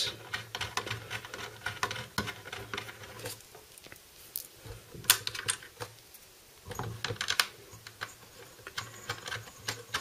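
Irregular small clicks and light taps as fingers twist threaded standoffs through a motherboard into a CPU cooler backplate, with a couple of sharper clicks about five and seven seconds in.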